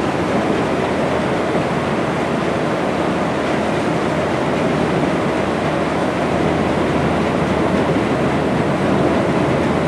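Steady engine rumble and rushing water of a moving boat heard from its deck, with wind on the microphone.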